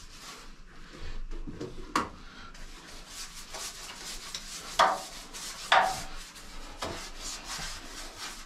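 A gloved hand scrubbing and rubbing on bare steel hull plating in short repeated strokes, with three sharp knocks, the loudest sounds, near the start and in the middle.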